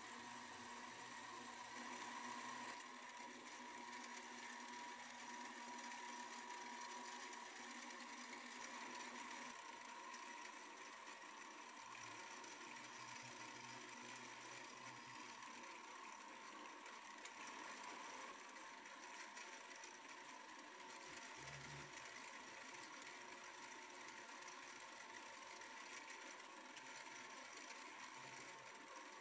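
Small metal lathe running steadily while a twist drill bores into a spinning polyethylene rod: a faint, even motor whine. It is backed out partway through and fed back in.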